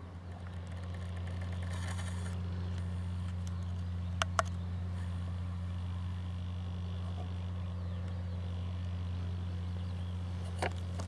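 New Holland T8050 tractor's diesel engine droning steadily under load while it pulls a cultivator through the soil, heard from a distance. Two short sharp clicks about four seconds in and another near the end.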